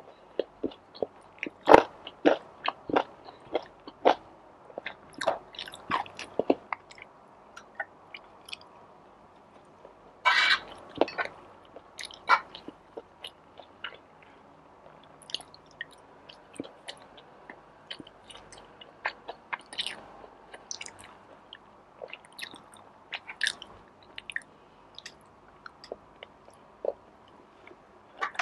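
Close-miked chewing and biting of food, calamares and tuna pasta, as a string of short wet clicks and smacks, with a louder, longer cluster about ten seconds in.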